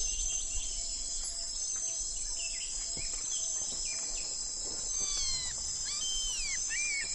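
Steady chorus of high-pitched insect trills, with a few bird calls: falling whistles about five to six seconds in and quick repeated chirps near the end.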